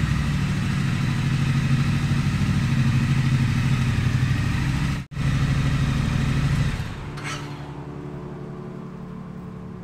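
Triumph Street Scrambler's 900 cc parallel-twin engine running at low speed, with a short break about five seconds in. About seven seconds in it drops to a quieter, steady sound.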